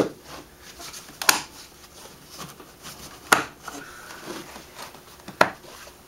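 The four spring clips on a Yamaha Wolverine 450 ATV's air box cover being released one after another: four sharp clicks, one to two seconds apart, with quieter handling sounds between.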